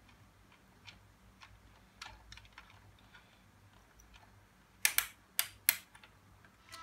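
Scattered light clicks and taps of a small screwdriver and plastic toy-truck parts being handled, with three sharper clicks close together about five seconds in.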